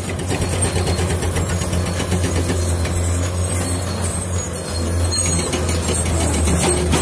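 Diesel engine of heavy construction machinery running loud and steady under load, dipping briefly about two-thirds of the way through and then coming back stronger.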